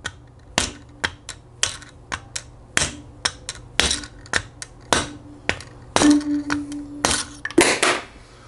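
A small hammer tapping a drift to drive a tight wrist pin into a Harley-Davidson Evo piston: a run of light, sharp taps, two or three a second and uneven in strength. The pin would not slide in by hand.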